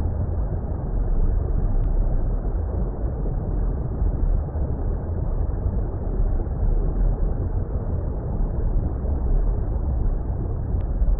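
Low, steady rumbling water noise, an ambient bed heavy in the deep bass and muffled, with nothing bright or high in it.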